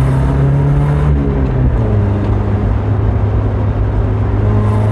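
Nissan 200SX S12 Silvia engine running while driving, its note dropping about a second and a half in and then holding steady. The distributor has just been reinstalled, and the engine is pulling with what the driver calls a much better response.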